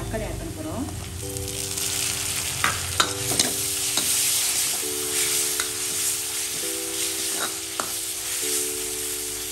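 Onions and chopped tomatoes sizzling in hot oil in a metal pan while a steel spoon stirs them, clinking and scraping against the pan several times. The sizzle grows louder about a second in.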